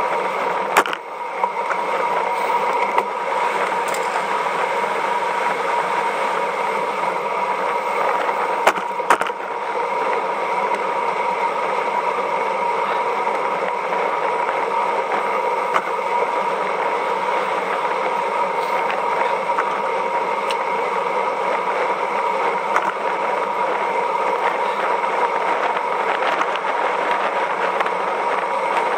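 Steady rush of wind and tyre noise on the microphone of a camera riding on a road bike at speed, broken by a few short knocks, with clear ones about a second in and around nine seconds in.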